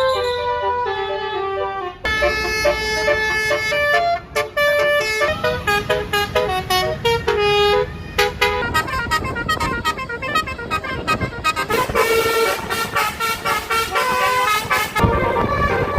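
Basuri telolet multi-tone bus horn playing a melody: a few held notes, then quick runs of short stepped notes that become a very fast chopping pattern, with a noisier stretch about three-quarters through.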